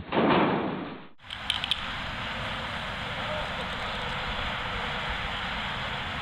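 A loud bang that dies away over about a second. After a short drop it gives way to a steady rushing background noise with a few faint clicks.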